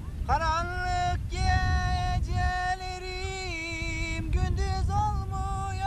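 Turkish folk music: a single melodic line of long held notes that slide up into pitch and step between notes, over a steady low rumble.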